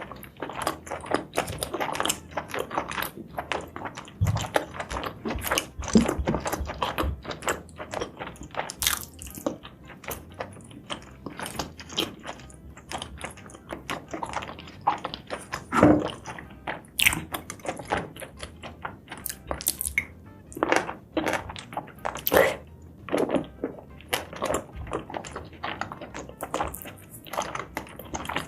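Close-up eating sounds: a person chewing and biting into spicy seafood and mushrooms, with many short, irregular wet clicks.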